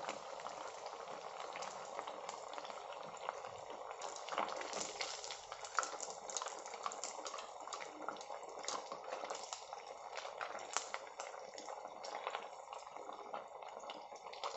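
Rava (semolina and potato) nuggets deep-frying in a kadhai of hot oil on a medium flame: steady bubbling and sizzling with many small crackling pops.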